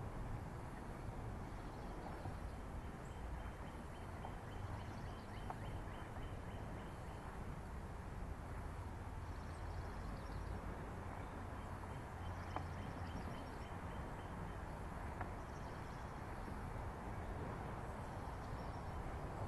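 Steady outdoor background rumble, mostly low-pitched. A faint, rapid, high ticking series comes in twice, a few seconds each time.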